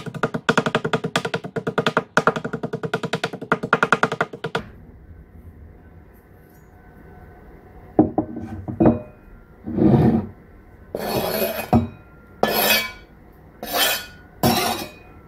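Fast rhythmic music for the first four and a half seconds. After that, a chef's knife knocks on a plastic cutting board and then scrapes across it in several short strokes, sweeping chopped parsley into a bowl.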